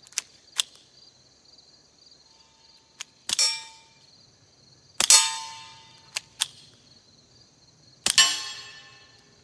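Three quiet suppressed .22 pistol shots, each followed by a steel target ringing and dying away over about a second; the CCI Quiet rounds are too weak to cycle the FN 502's action. A few small clicks fall between the shots, over a steady chirping of insects.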